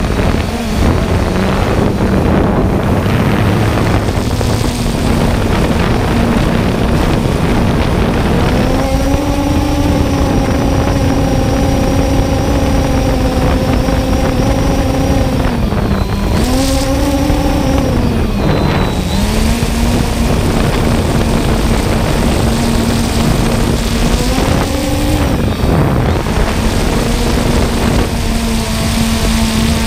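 3DR Solo quadcopter's motors and propellers running, heard from its onboard camera as a loud hum over rushing wind noise. The hum's pitch dips briefly a few times in the second half, then settles.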